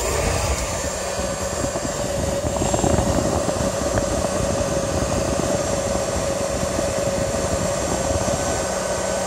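Hair dryer switched on and running steadily: an even rush of blown air with a steady motor hum, starting suddenly.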